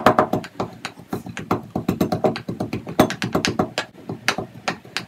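Rapid, uneven pounding strikes, about four or five a second, as boiled chicken and potato are pounded into shreds.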